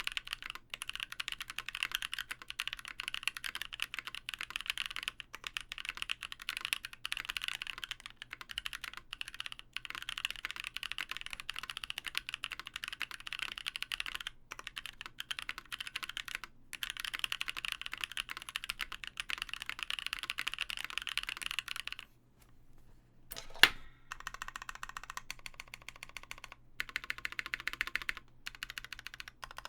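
Fast typing on a custom mechanical keyboard: a KBDfans Tofu with lubed Gazzew Boba U4T tactile switches, a polycarbonate plate, case foam and GMK keycaps, giving a dense run of rapid key clacks. About three quarters of the way through the typing stops briefly, one much louder sharp knock sounds, and the typing resumes.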